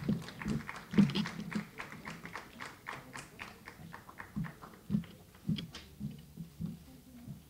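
Sparse applause from a small audience: irregular individual hand claps, several a second, thinning out near the end.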